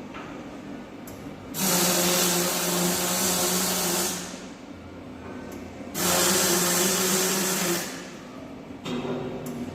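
Electric welding on a steel chassis frame: two welding runs of a couple of seconds each, a steady crackling hiss over a low hum, starting about a second and a half in and again about six seconds in, with a shorter burst near the end.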